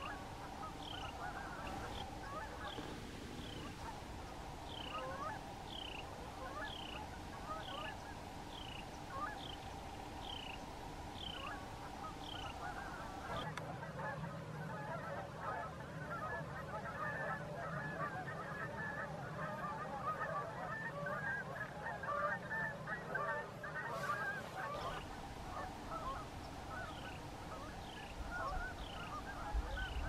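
A chorus of waterfowl calls from a large flock, with a high, falling call repeated every half second or so through the first twelve seconds and again near the end. Through the middle third the calling thickens into a dense chatter.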